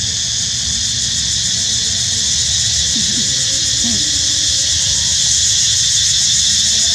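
Steady, high-pitched chorus of droning insects over a low rumble, with a few faint short calls about three seconds in.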